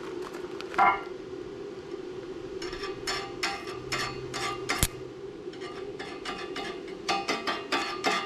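Short, sharp metallic taps and clinks on heavy steel plate, with one louder ringing clank about a second in and quick runs of strikes in the middle and near the end, over a steady low hum.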